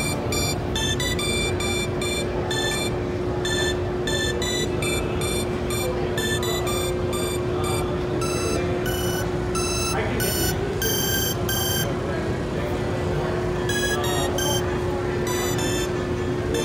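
Short, bright electronic synth notes played one after another at an irregular pace, with a short pause about three-quarters of the way through: a display MacBook running GarageBand, played from its keyboard. A steady low hum and store murmur lie underneath.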